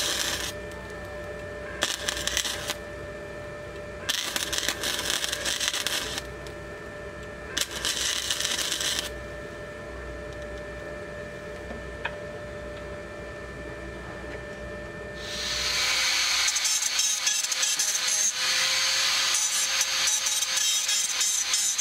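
MIG welding arc crackling in four short bursts of a second or two each, from an Izumi MIG 130 welder, with a steady hum between the bursts. About fifteen seconds in, an angle grinder starts grinding metal: a loud hiss over a steady whine.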